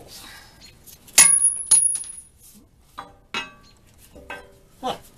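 Steel nuts and washers clinking as they are pulled off the studs of a bolted plate on a wood boiler by hand, about six separate sharp clinks. The loudest, about a second in, rings briefly.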